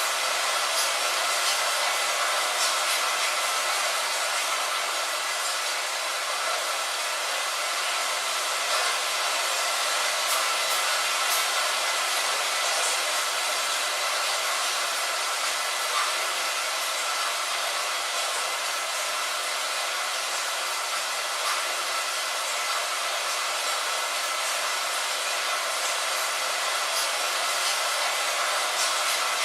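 Steady rain sound: an even, unbroken hiss with a few faint scattered drop ticks.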